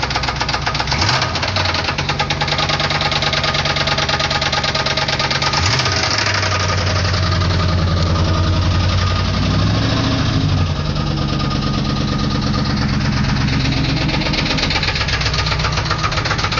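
Chevrolet 350 TPI small-block V8 running with a heavy, rapid knock tied to engine speed; the engine's pitch shifts a few times. The cause of the knock is unknown to the owner.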